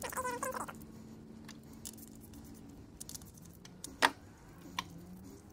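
Small parts being handled while red rubber protection covers are fitted onto the terminals of a Victron Smart Battery Protect: a brief squeak at the start, then scattered light clicks of metal parts, the sharpest about four seconds in.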